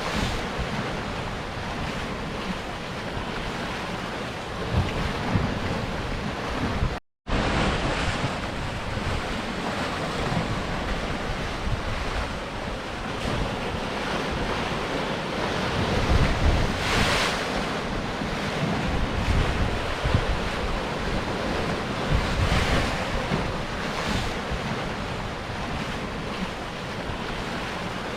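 Sea surf breaking on rocks: a continuous wash of water that surges louder now and then as waves come in, with wind rumbling on the microphone. The sound drops out to silence for a moment about seven seconds in.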